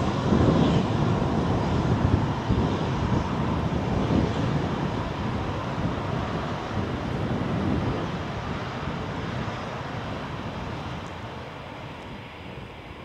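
A Eurofighter Typhoon's twin EJ200 jet engines running at taxi power as the jet rolls past: a steady jet rush, loudest in the first couple of seconds and fading gradually as it moves away.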